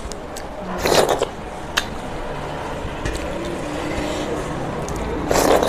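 Wet eating sounds as fingers wipe the last gravy off a stainless-steel plate, with two short loud slurps, about a second in and near the end.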